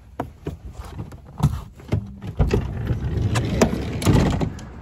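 Camera handling noise and footsteps: irregular knocks and rustling on the microphone as it is carried at a walk, denser and louder in the second half.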